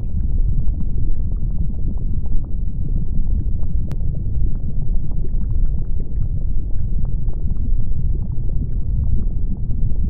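Lava eruption ambience: a steady deep rumble with many small crackles and pops scattered through it, and one sharper crack about four seconds in.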